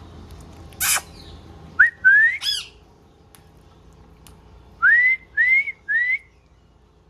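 Green parrot calling: one short harsh squawk, then two rising whistled calls, then three short rising whistles in quick succession near the end.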